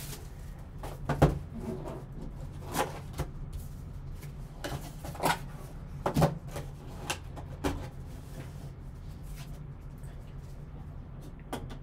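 Handling noise from opening a cardboard trading-card box with gloved hands: scattered taps and soft knocks of cardboard and a hard clear plastic card case, over a low steady hum.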